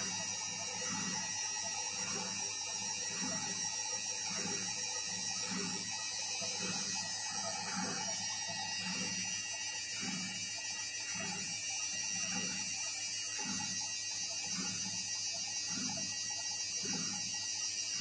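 Candy CS 105 TXT R washing machine on its spin cycle, the drum turning at low speed with a rhythmic whoosh of wet laundry and water a little under twice a second, over a steady high motor whine.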